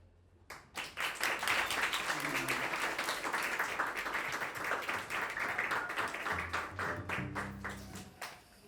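Audience clapping, dense and irregular, starting about a second in and dying away near the end.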